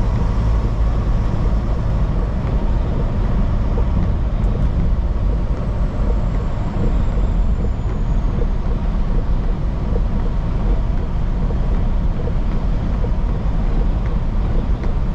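Steady in-cab drone of a semi-truck cruising on the highway: a low engine and drivetrain hum mixed with road and wind noise, unchanging throughout.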